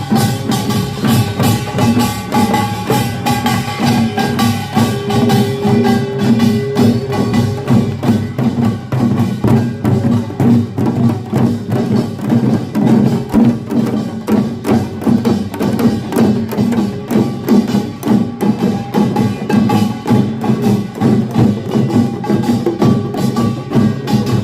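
Korean pungmul farmers' band playing: a dense, fast, steady rhythm of clanging small gongs and drums, with ringing metal tones held under the strokes.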